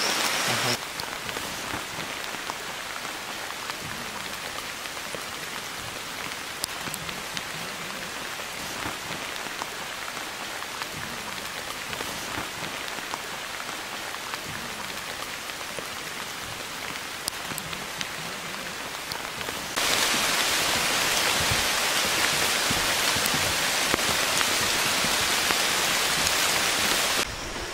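Steady rain falling on rainforest foliage, an even hiss that grows clearly louder about two-thirds of the way through and drops back just before the end.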